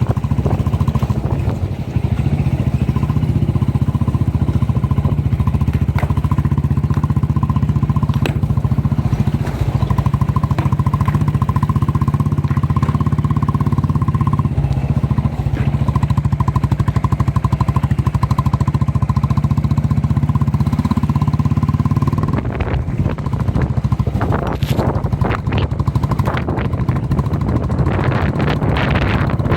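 A vehicle's engine running steadily, a constant low rumble with a thin steady whine that fades out about two-thirds of the way through. After that the sound turns more broken and uneven, with wind on the microphone.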